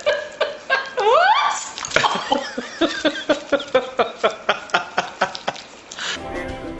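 Puppy lapping and slurping food from a saucer: quick wet smacks, about three to four a second, with a rising squeal about a second in.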